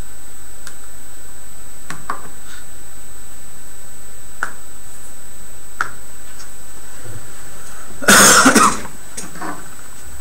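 Steady hiss of recording noise with a thin high whine and a few faint clicks, then about eight seconds in a short, loud burst of several quick rough noises, after which the hiss drops a little.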